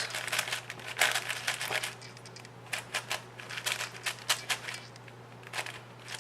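Yuxin Little Magic 5x5 M magnetic speed cube being turned by hand: quick runs of plastic clicks and clacks as its layers turn. The clicks are busiest for the first two seconds, then come sparser.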